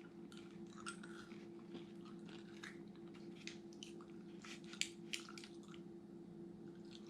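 Faint, irregular wet mouth clicks of Thrills rose-water-flavoured chewing gum being chewed, over a steady low hum.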